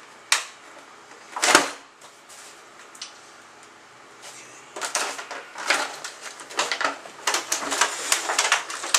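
Small metal lockset parts and keys being handled: a sharp click, a louder knock about a second and a half in, then from about halfway a busy run of irregular clicks and rattles.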